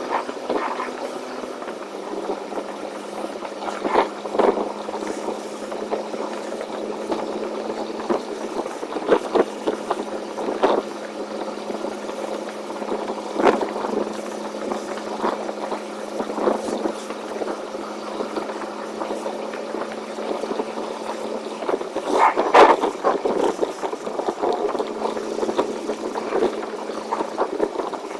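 Semi truck's engine running with a steady drone on the highway, with frequent short rattles and knocks over it and a louder cluster of rattles late on.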